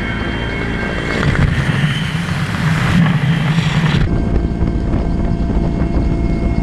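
Mi-8 helicopter's turbine engines and rotor droning steadily in flight, heard through the open doorway. From about a second in until about four seconds in, a louder rush of wind noise covers the drone. It then cuts back sharply to the steady helicopter sound.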